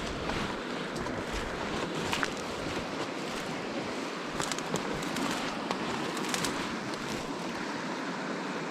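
River water rushing steadily, with a few short sharp clicks and crackles scattered through it.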